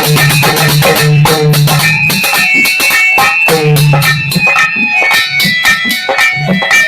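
Instrumental music of a Hindi devotional song (bhajan): a fast, steady percussion beat under a melody on plucked-string and keyboard-like instruments, with no singing.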